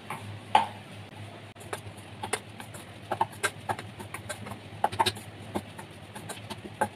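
A spoon clinking and scraping against a stainless steel bowl in quick, irregular taps while crumbly chhena is stirred with spices and flour, over a low steady hum.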